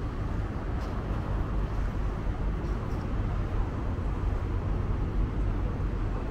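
The engine of a sightseeing boat running steadily under way: a constant low rumble with a wash of noise above it.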